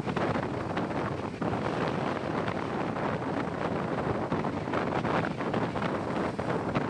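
Wind buffeting the microphone in gusts, a constant rumbling rush.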